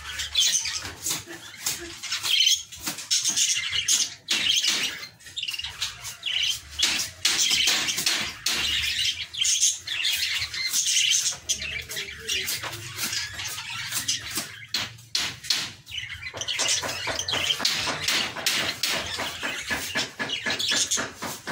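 Budgerigars chattering: a continuous stream of quick, high chirps and warbles.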